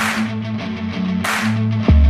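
Background music: a hip-hop beat with a plucked guitar riff and two snare hits. Near the end a deep bass note drops in with a falling sweep and gets much louder.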